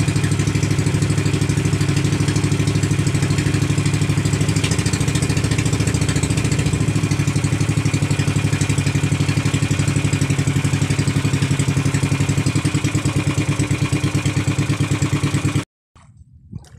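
Small boat engine of an outrigger fishing boat running steadily under way with an even throb; it cuts off abruptly near the end, leaving only faint sound.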